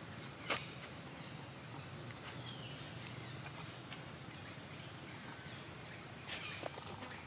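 Outdoor ambience: a steady high-pitched insect drone, with a couple of sharp clicks, one about half a second in and another near the end.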